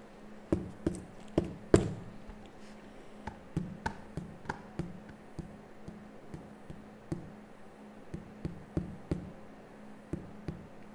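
Irregular computer keyboard and mouse clicks, a couple of taps a second and loudest in the first two seconds, over a faint steady electrical hum.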